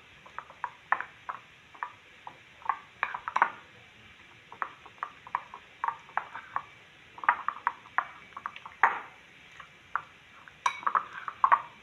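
Metal spoon clinking and scraping against a bowl while mixing raw chicken pieces with cornflour and egg yolk: irregular taps throughout.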